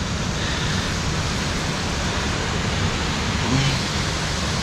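Steady, even rushing noise, with no distinct knocks or calls standing out.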